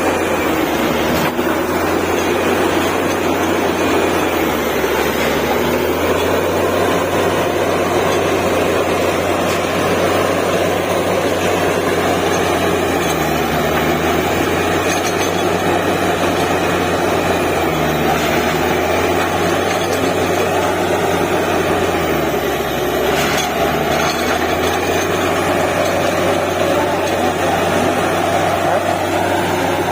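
Truck-mounted DTH borewell drilling rig running steadily under load: the heavy diesel engine and air compressor give a continuous loud drone while the rig drills.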